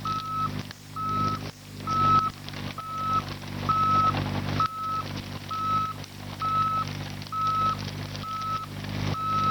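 Kubota excavator's travel alarm beeping steadily, one evenly pitched beep about every three-quarters of a second, while the machine moves on its tracks. Under it the diesel engine runs steadily.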